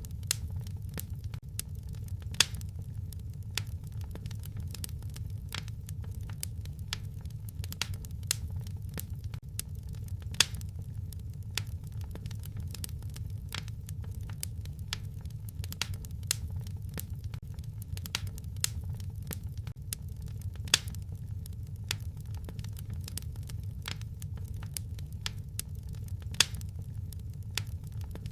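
Wood fire crackling: irregular sharp pops and snaps over a steady low rumble, with a few louder pops standing out now and then.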